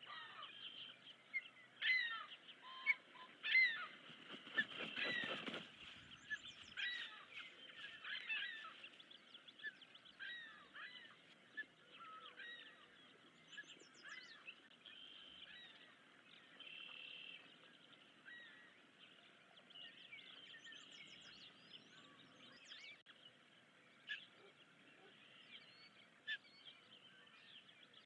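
Ospreys at the nest calling: a long series of short, high, whistled chirps, thick and loud in the first few seconds and sparser after. About five seconds in, a brief rush of noise passes.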